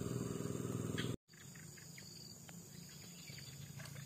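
Steady high-pitched chorus of insects, with a few faint short chirps scattered through it. For about the first second a louder low hum lies underneath. The sound then drops out for an instant, and the insects carry on alone, quieter.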